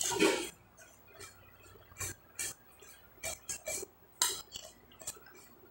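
Metal spoon clinking and scraping against a plate while scooping food, in scattered short strokes, the loudest right at the start.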